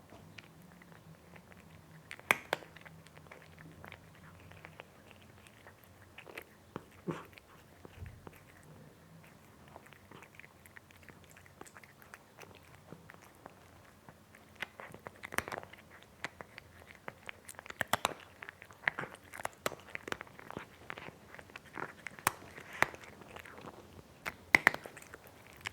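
A cat chewing and biting its food, in short sharp crunches. The bites are scattered at first and come much faster about halfway through.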